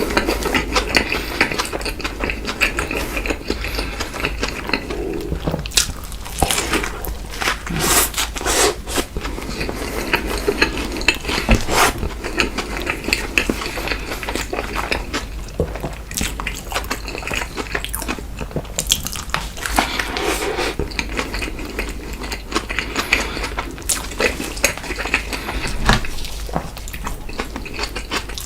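Close-miked eating: steady biting and chewing of fast food, with many small wet smacks and clicks and the occasional knock of dishes or packaging.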